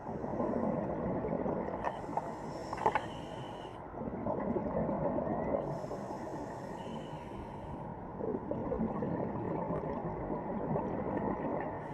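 Underwater recording of low, wavering moans over a steady rushing noise: the strange sound heard at the crash site, which some people take for human voices.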